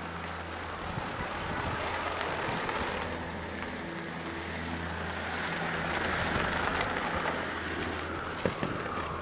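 A propeller plane's engine droning, growing louder through the middle and easing off near the end, over a steady low hum. A single sharp tap comes about eight and a half seconds in.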